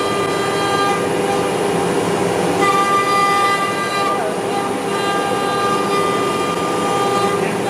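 Automatic tool change spindle (HSD 12 HP) of a 4x4 CNC router running at high speed and routing: a steady high whine over cutting noise, the whine growing stronger and weaker every few seconds as the cut goes on.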